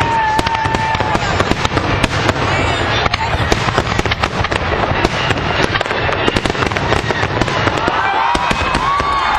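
Fireworks going off in a dense, continuous barrage of bangs and crackles, with a few whistles heard over them near the start and near the end.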